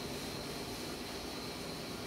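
Steady background hiss of room tone, with a faint steady high-pitched whine running through it.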